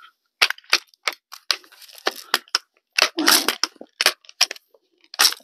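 Daisy Model 840 multi-pump air rifle being readied for a shot: a quick series of plastic-and-metal clacks from working its pump lever and action, several per second.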